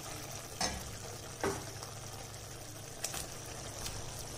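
Masala gravy sizzling softly in a pan, with four light knocks against the pan as cut okra is added.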